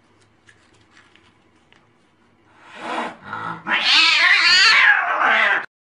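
Domestic cat yowling in anger: a rising growl leads into a loud caterwaul with a wavering pitch, held for about two seconds before it cuts off suddenly near the end.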